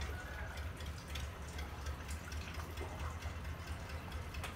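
Low steady drone of a boat engine running past out on the river, with small water splashes and drips.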